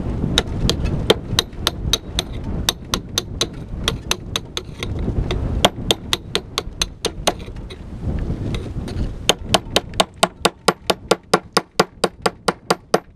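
A hand tool striking rock over and over, chipping at the stone so that flakes come off: a steady run of sharp taps, about three a second, quickening to four or five a second near the end. Wind rumbles on the microphone until it dies down about ten seconds in.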